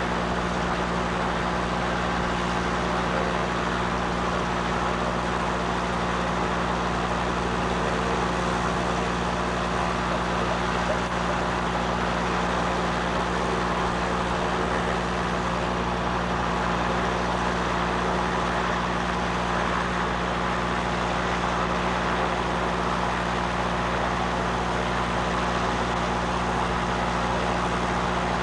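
An engine running steadily at constant speed, a continuous even hum with no change in pitch or level, cut off abruptly near the end.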